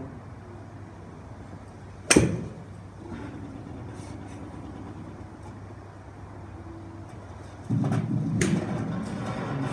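Low steady room noise with one sharp knock about two seconds in, then a louder low rumble starting near the end with a sharp click in it.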